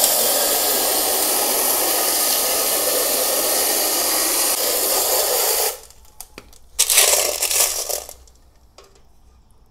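Garden hose spray nozzle jetting water onto tumbled stones in a perforated stainless-steel pot, rinsing off the fine-grit slurry. A steady spray hiss lasts about six seconds, stops, and a second shorter burst of about a second follows.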